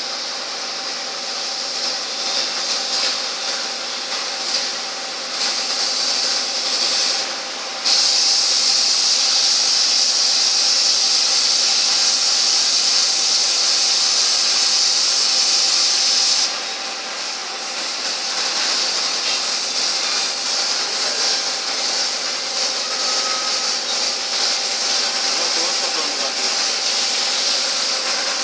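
Airbrush spray gun hissing with compressed air as paint is sprayed, louder for a stretch of about eight seconds in the middle that starts and stops suddenly, with a faint steady hum underneath.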